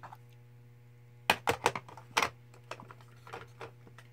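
Plastic blush compacts clicking and clacking as they are handled and opened: a quick run of sharp clicks just over a second in, then lighter clicks, over a faint steady hum.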